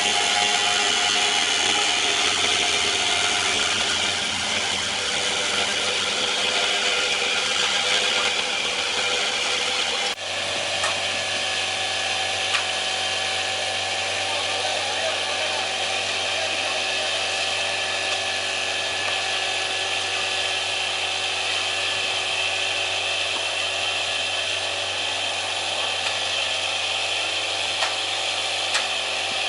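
Steady, loud machine noise like a power tool running. It changes abruptly about ten seconds in, then carries on with a steady low hum underneath and a few faint clicks.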